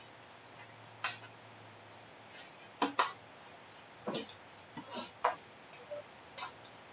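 Irregular clicks, taps and light knocks of plastic power adapters and their cables being handled, about ten in all, loudest around the middle.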